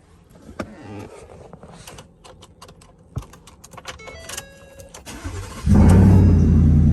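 Supercharged Ford F-150 engine starting: after a run of sharp clicks and a few short beeps, it catches about five and a half seconds in and settles into a loud, steady idle.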